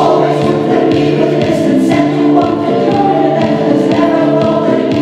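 Mixed amateur choir singing in sustained chords, men's and women's voices together, over a faint steady pulse about twice a second.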